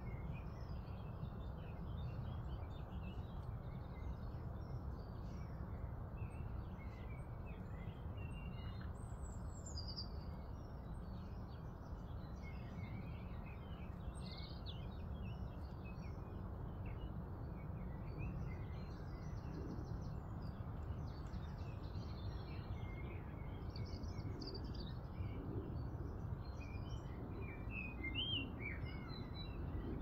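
Several small songbirds chirping and singing at once, short calls and phrases throughout, over a steady low rumble.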